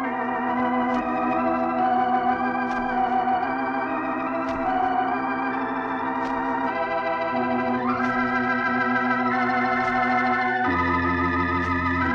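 Organ music playing held, wavering chords, with a rising slide about two-thirds of the way through and a deep bass note coming in near the end. Faint ticks recur about once a second.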